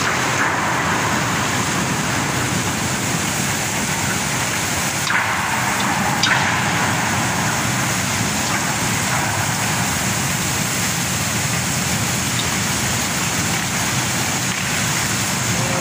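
Steady rushing noise of coal pouring from a shiploader spout into a steel ship's cargo hold, with a couple of brief knocks about five and six seconds in.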